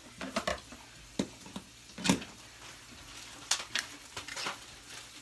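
Kitchen handling noise as a stick of butter is unwrapped from its wrapper and put into an Instant Pot: scattered crinkles, taps and clunks, the loudest clunk about two seconds in.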